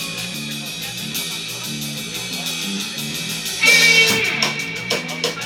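Live rock band playing: an electric guitar part over a repeating bass line and steady hi-hat ticks. About two-thirds of the way in, the band comes in louder and fuller.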